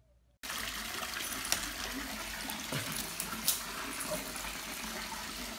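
Running water, a steady rushing hiss that starts abruptly, with a couple of sharp clicks over it.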